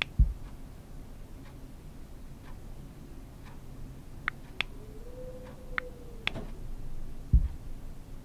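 Sound effects: a soft tick about once a second, with a few sharper clicks toward the middle. Two low thuds, one just after the start and one near the end, are the loudest sounds. A short hum rises and falls in between.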